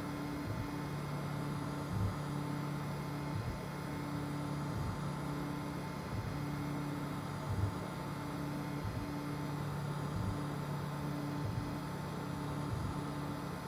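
FDM 3D printer printing: its stepper motors run in steady tones that stop and restart every second or so as the print head changes moves, over a steady hiss, with a few brief low knocks.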